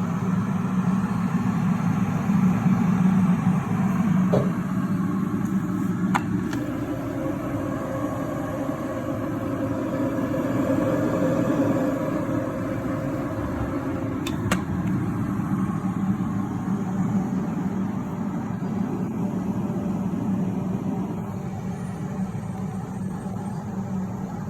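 Electrolux electric kettle heating water: a steady rumble with a few faint clicks.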